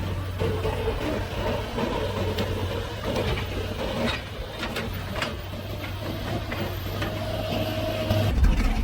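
A heavy machine's engine running at a steady low hum, with scattered knocks and clanks around the middle and a brief whine near the end.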